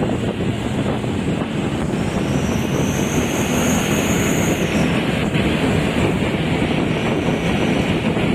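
A vehicle running on the road, with heavy wind noise on the microphone. A faint high whine rises briefly from about two seconds in and stops short of five.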